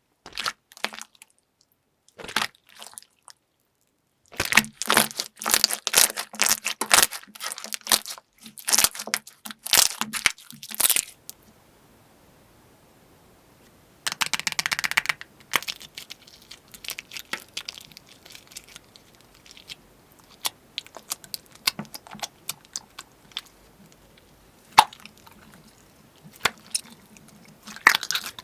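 Crunchy slime being squeezed and pressed, giving sharp crackling and popping. There are a few clicks first, then a dense run of crackles, a short pause, a brief rustle, and then softer scattered crackles.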